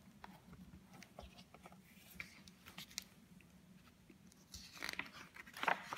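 Hardcover picture book being opened and its pages turned by hand: faint scattered taps and paper rustles, with a louder rustle of a page turning about five seconds in.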